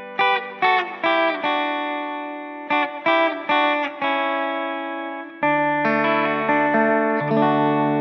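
Background music: an electric guitar picking single notes that ring and fade one after another, moving onto lower held notes about five and a half seconds in.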